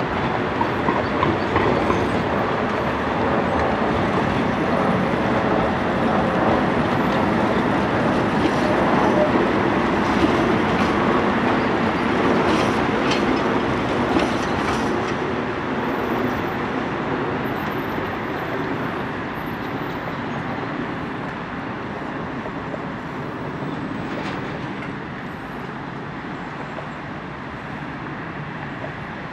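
Tram running over the rails, its wheels clattering and rumbling over the track. The sound gradually fades through the second half.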